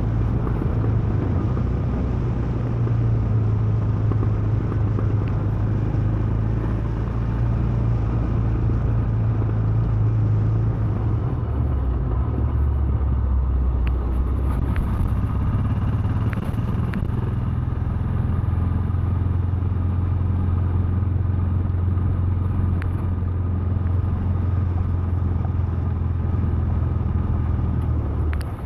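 Royal Enfield Himalayan's 411 cc single-cylinder engine running steadily on the move, with wind and road noise. About twelve seconds in, the engine note drops to a lower, steady pitch.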